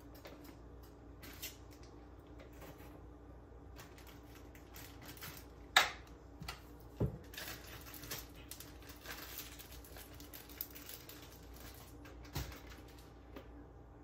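Kitchen handling sounds of packing cut fruit into a small plastic bag: scattered clicks, knocks and plastic rustles, with one sharp click about six seconds in and duller knocks about a second later and near the end. A faint steady hum runs beneath.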